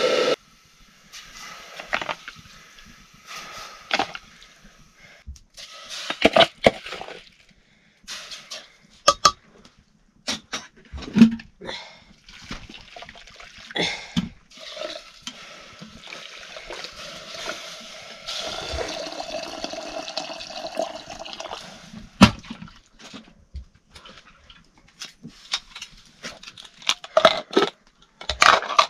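Water pouring and splashing, probably in food being washed for cooking, with scattered sharp knocks and clicks throughout; longer runs of pouring a few seconds in and again from about halfway.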